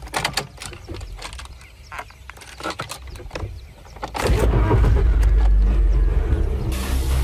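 Scattered clicks and knocks over a low rumble, then about four seconds in a deep house mix starts loud with a heavy, steady bass line. Higher percussion joins near the end.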